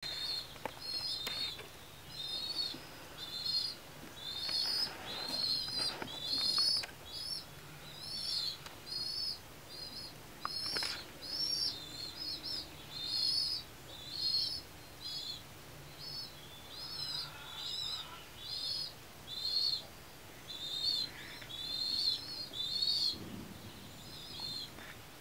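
Baby pigeons (squeakers) giving a steady run of short, high begging squeaks, about one to two a second, as they pester an adult pigeon.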